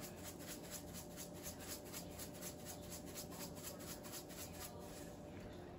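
Faint rhythmic scratching from a kitchen utensil at work in the cooking, about four or five strokes a second, fading out near the end, over a steady low hum.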